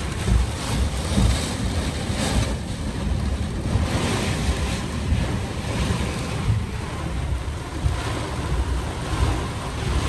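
Strong gusting wind and heavy rain of a severe thunderstorm, surging in waves, with the wind buffeting the microphone as a deep rumble.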